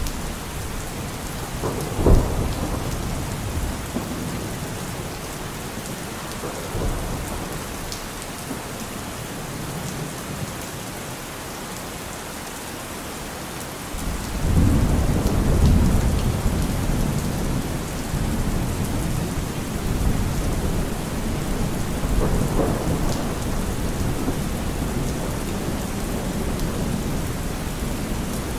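Steady rain with thunder: a sharp clap about two seconds in, then a long low rumble of thunder starting about halfway through.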